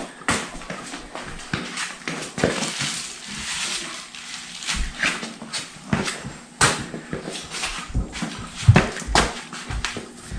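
Footsteps and shuffling on cardboard over a concrete floor, with scattered irregular knocks and scuffs from handling the steel lift parts.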